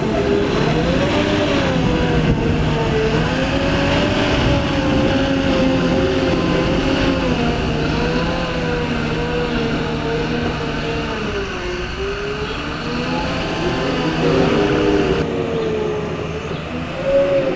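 Claas Torion 1511 wheel loader's diesel engine working under load while climbing a silage pit, its revs rising and falling again and again, dipping about two-thirds of the way through and picking up near the end.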